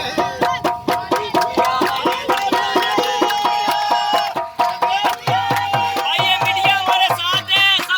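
Background music with a steady, quick drum beat and ringing pitched melody, in a South Asian or Middle Eastern folk style.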